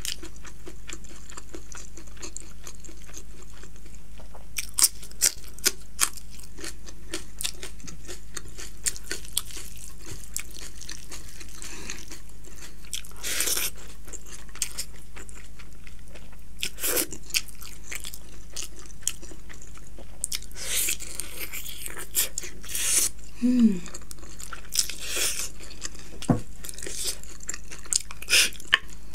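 Close-miked chewing and crunching of food, with sharp wet mouth clicks and smacks scattered through, heavier bursts of crunching several times.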